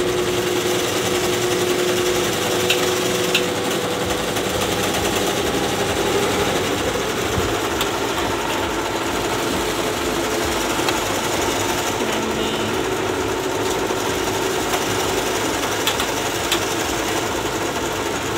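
Commercial multi-needle embroidery machines stitching: a steady mechanical running sound with a few short ticks.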